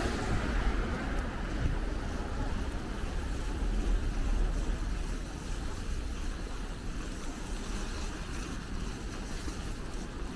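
Wind rushing over the microphone of a camera riding on a bicycle, a flickering low rumble with street traffic noise beneath, easing off a little about halfway through.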